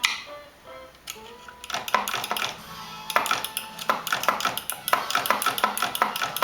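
Oliver typewriter in use: quick metallic clacks of the typebars and escapement, with a little ringing between strokes. The clacks are sparse at first and run fast, several a second, from about two seconds in.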